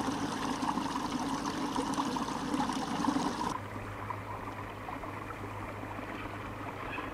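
Water running in a small garden stream, a steady trickling rush that becomes quieter and duller about halfway through.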